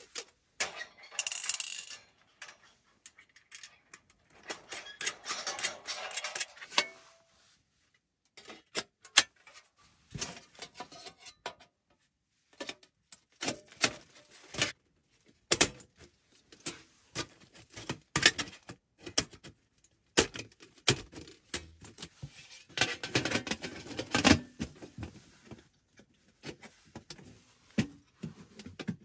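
Thin stainless steel panels of a flat-pack Pomoly camp oven clinking, tapping and knocking together as they are slotted into a box, in irregular light strikes with a couple of longer scraping stretches.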